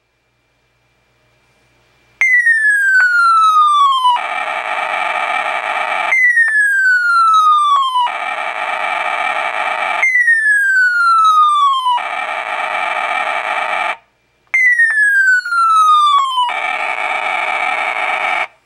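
An electronic sound-effects horn (New Star Corporation Bichorn, 1989) playing a repeating effect. A whistle falls in pitch over about two seconds, then a harsh electronic buzz lasts about two seconds. The cycle plays four times, with a brief pause before the last one.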